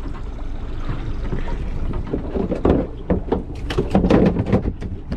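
Steady wind and water noise on a small boat, then, from about two seconds in, a run of knocks and clatter as things are handled on the deck.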